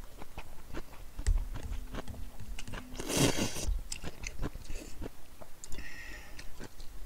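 Close-miked eating of cold naengmyeon noodles: wet chewing and mouth clicks throughout, with a loud slurp of noodles about three seconds in and a shorter one near the end.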